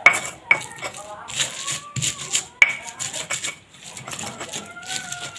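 Stone pestle (ulekan) pounding and grinding fresh chilies and garlic in a stone mortar (cobek). Sharp stone-on-stone knocks come at the start, half a second later and about two and a half seconds in, with crushing and rubbing between.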